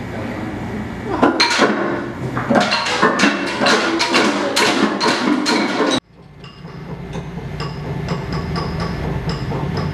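Bamboo percussion instruments struck with sticks by an ensemble: a fast, irregular clatter of hollow wooden knocks. About six seconds in it cuts off abruptly, and quieter light tapping with a faint ringing tone over a low hum follows.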